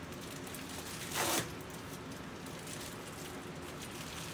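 A plastic mailing bag being ripped open: one short tearing rasp about a second in, over a faint steady background hum.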